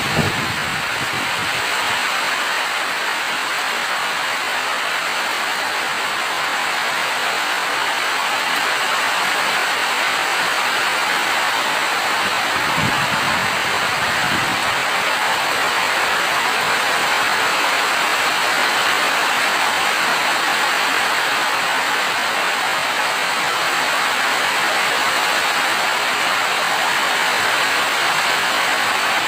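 Steady heavy rainfall, an even hiss with no let-up. A brief low rumble comes through about halfway.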